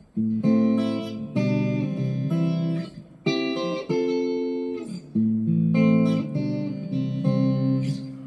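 GEARIT GST-100 Strat-copy electric guitar played clean through a small practice amp: a series of chords, each struck and left to ring for about a second before the next, while one pickup setting is tried out.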